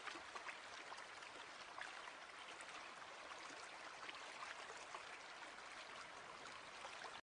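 Faint steady hiss with scattered small crackles, which stops abruptly at the end.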